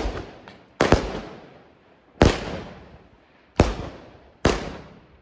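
Argento 'Lilac' firework going off: a loud bang roughly every second, five in all, each trailing off over about a second.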